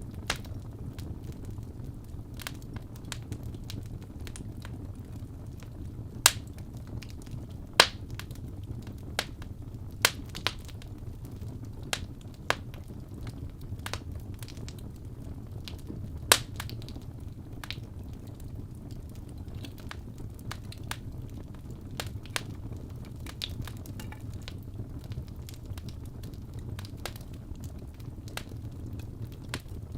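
Wood fire in a fireplace crackling, with irregular sharp pops over a low, steady rumble; the loudest pops come about 6, 8 and 16 seconds in.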